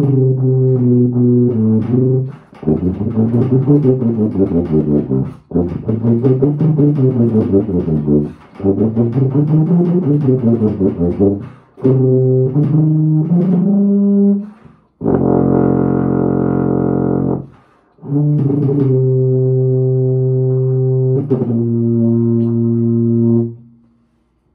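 Unaccompanied low brass instrument playing: held low notes, then quick up-and-down arpeggio runs, then long sustained notes, with the playing stopping shortly before the end.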